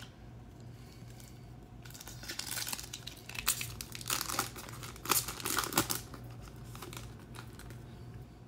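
A foil trading-card pack being torn open and crinkled by hand: a run of crackling and tearing from about two seconds in to about six seconds in, loudest in a few sharp rips near the middle.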